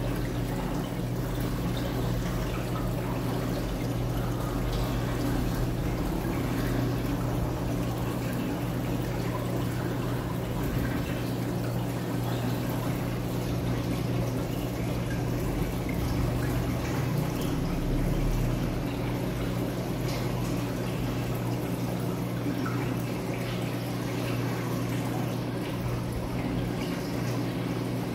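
Reef aquarium water running and trickling steadily, with a constant low hum underneath.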